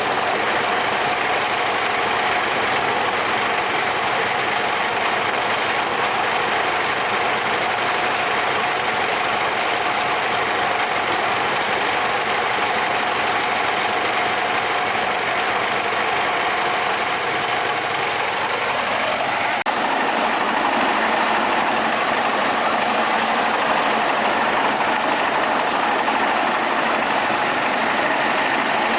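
A motor running steadily and continuously, with a change in its note about two-thirds of the way through.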